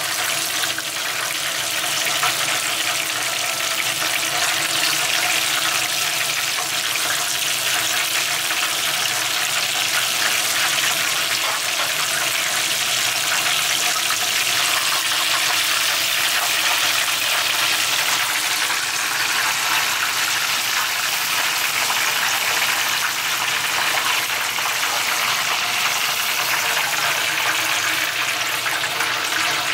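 Shrimp tempura deep-frying in a pan of hot oil: a steady, dense sizzling hiss.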